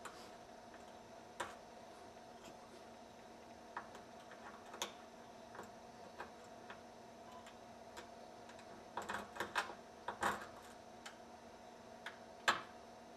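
Lock pick and tension wrench working in a deadbolt's cylinder: sparse, irregular small metallic clicks and ticks, with a quick run of clicks about nine to ten and a half seconds in and a sharper click near the end.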